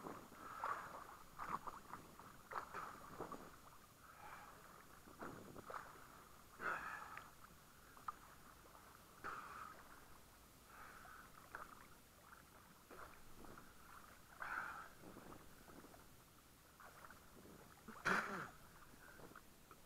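Faint, irregular sloshing and splashing of small waves against a waterproof action camera held at the sea surface, with one louder splash near the end.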